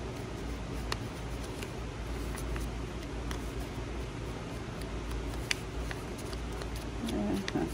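Steady low hum of garage fans, with scattered light taps and paper rustles as a foam ink dauber is dabbed along paper edges.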